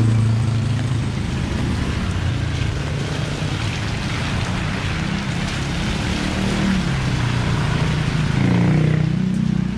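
A motor vehicle's engine running close by, its pitch shifting, over a steady hiss of rain.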